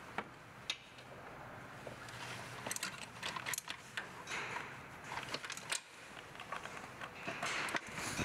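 Metal socket and extension clicking and clinking irregularly while throttle body bolts are snugged down by hand, with bunches of small clicks about a third of the way in and again near the end.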